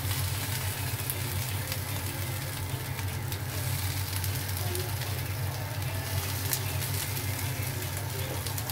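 A steady low hum, with a few light taps and clicks as raw prawns are laid out in a ridged nonstick grill pan.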